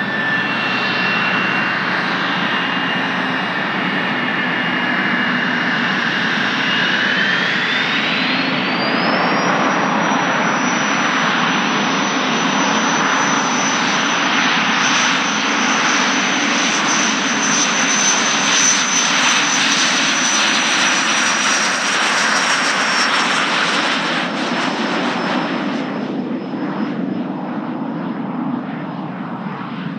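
Cirrus SF-50 Vision's single Williams FJ33 turbofan spooling up to takeoff power. Its whine rises sharply in pitch about eight seconds in, then holds high and steady over the jet roar during the takeoff roll, easing off near the end as the jet moves away.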